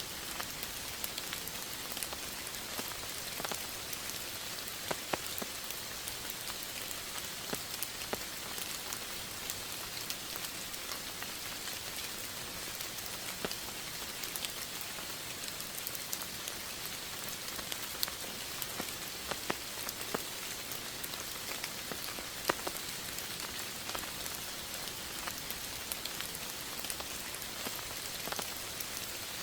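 Steady rain falling on a surface, an even hiss with many separate drops ticking throughout.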